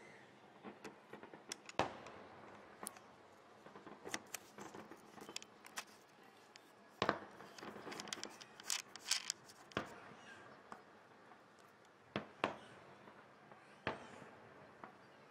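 Distant aerial firework shells bursting: scattered sharp bangs and crackles, with a quick run of several together about nine seconds in.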